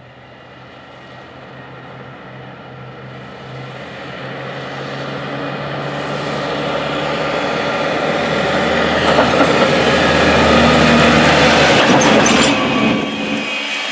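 John Deere 8RX four-track tractor driving toward the listener on a paved road: its engine and rubber tracks grow steadily louder as it approaches, then cut off suddenly near the end.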